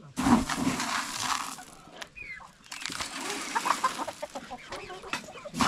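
Chickens clucking, in two loud stretches with a short lull near the middle.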